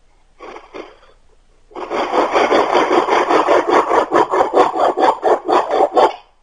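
A hand tool worked back and forth across wood in quick, even strokes, about five a second. A brief scrape comes first, and the main run starts a little under two seconds in and lasts about four seconds.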